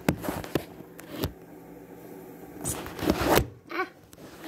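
Handling noise from a phone camera being moved and set down: a few sharp knocks, then scraping and rustling.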